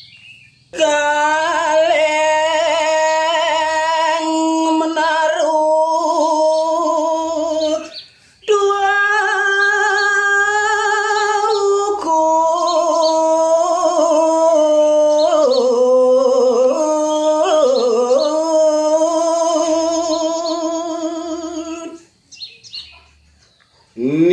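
Solo voice singing a Balinese geguritan verse (tembang) in the pupuh Ginanti melody, unaccompanied, with long held notes and wavering ornaments. It comes in two phrases with a brief break about eight seconds in, and stops about two seconds before the end.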